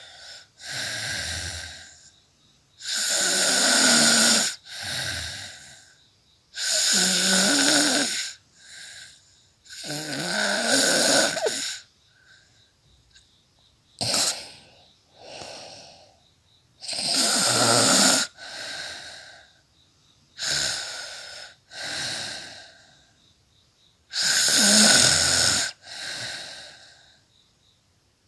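A woman snoring in her sleep: about seven slow breaths, each a long loud snore lasting about a second and a half followed by a shorter, quieter one, with short silent pauses between.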